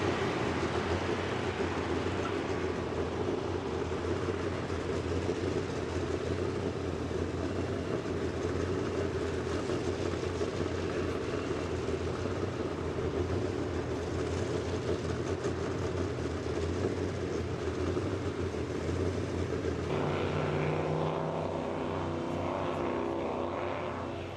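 Steady low engine drone that starts suddenly and holds evenly; a wavering pitched sound joins over it near the end.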